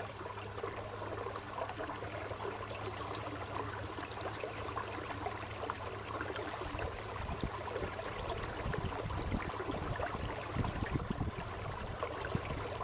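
Electric trolling motor humming steadily as it pushes the canoe, with water trickling and gurgling along the hull. Irregular low thumps come in around the middle.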